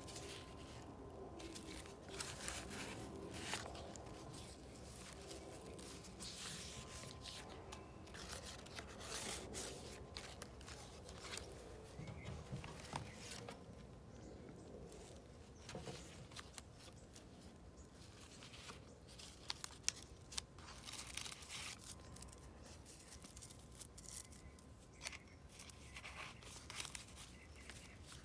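Pages of a handmade paper journal being turned and handled: paper rustling and crinkling in short, irregular rustles, with a couple of sharper flicks about twenty seconds in.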